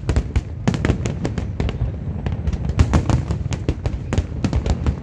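Fireworks display: a dense barrage of aerial shells bursting, with rapid, overlapping bangs several a second over a continuous low rumble.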